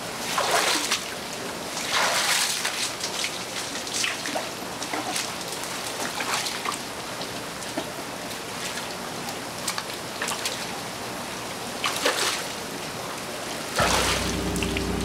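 Shower water running and splashing onto the floor in steady spatters, with louder splashy surges several times. A low music score comes in near the end.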